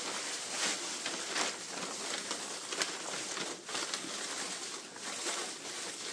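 Shredded newspaper packing rustling and crackling as hands dig through it, a continuous run of small crinkles.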